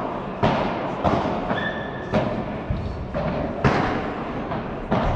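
Padel rally: a padel ball struck by solid paddle rackets and bouncing off the court and glass walls, about five sharp pops at uneven intervals, each echoing in a large hall. A short squeak comes about a second and a half in.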